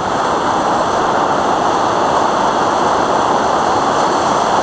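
Waterfall on a rushing brook: a loud, steady rush of water with no let-up.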